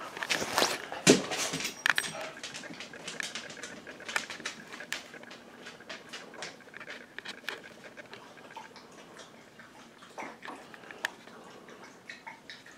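A dog's claws clicking and tapping on a hard floor in irregular light ticks, busiest and loudest in the first two seconds with a thump about a second in, then fainter and sparser.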